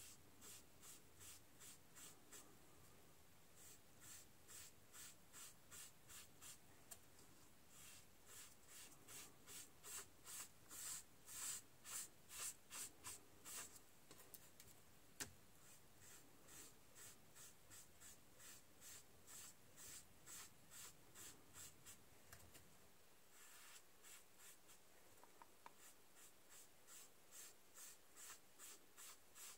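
Faint, quick back-and-forth rubbing of a sponge applicator spreading PanPastel over paper, about two to three strokes a second, loudest from about ten to fourteen seconds in. A single sharp tick sounds about halfway through.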